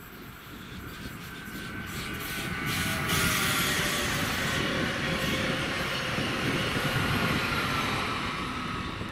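A Stadler FLIRT electric multiple unit passing close by on the rails. It grows louder over the first three seconds and then holds, a dense rumble and hiss from the wheels and running gear with thin high squealing tones over it.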